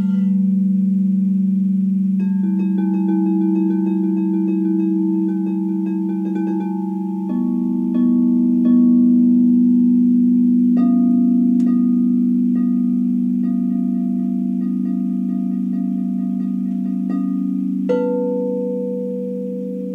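Frosted quartz crystal singing bowls played with a mallet: several bowls ring together in long, overlapping steady tones. A new bowl is struck in about four times, and light mallet taps sound over the ringing, quick and close together early on, then about once a second.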